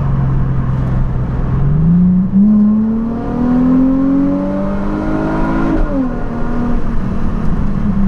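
Nissan 350Z's 3.5-litre V6 engine pulling under acceleration while driving. Its pitch climbs steadily for about four seconds and drops sharply at a gear change about six seconds in. It then runs steady and falls away near the end as the car eases off.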